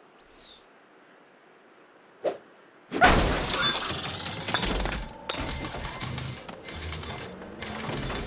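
Cartoon sound effects: a brief high swish and a single knock, then a sudden loud smash about three seconds in, followed by a busy run of clattering effects with music.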